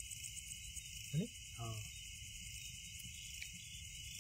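Night chorus of crickets, a steady high-pitched chirring. A person makes a brief rising vocal sound about a second in.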